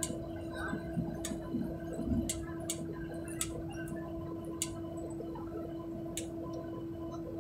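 Cabin noise inside a jet airliner taxiing: a steady low hum with fainter steady tones above it, and about six sharp clicks scattered through it.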